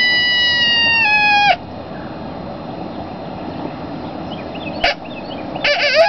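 Barnett Tribute coyote howler call blown in a long, steady howl that drops in pitch and cuts off about a second and a half in. After a pause broken by a short click, a new howl starts near the end with a wavering pitch.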